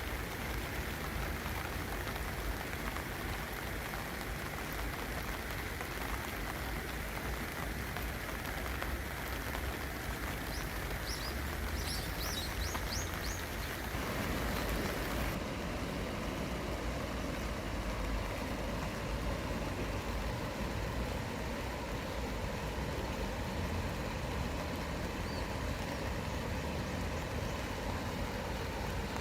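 Steady rain falling with a low rumble under it. About halfway through the sound changes abruptly and becomes duller, and a few faint high chirps come shortly before that.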